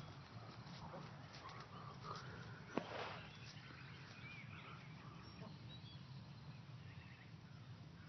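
Faint chickens clucking and small bird chirps over a low steady background noise, with one sharp knock about three seconds in.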